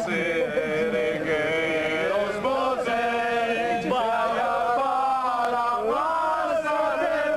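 A group of people singing a song together in chorus, holding long notes that change about every second.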